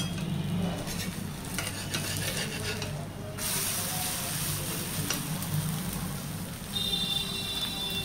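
Jackfruit pua batter sizzling as it shallow-fries in oil in a frying pan, with a metal spatula scraping and turning it in the first few seconds. A thin high tone joins near the end.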